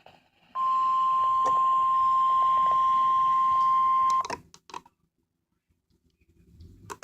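NOAA Weather Radio alert tone on a weather radio receiver: one steady high-pitched tone that starts about half a second in and cuts off after about four seconds, followed by a few short clicks and a gap of silence, then the tone starts again at the very end. It marks the start of an incoming alert, here a severe thunderstorm watch.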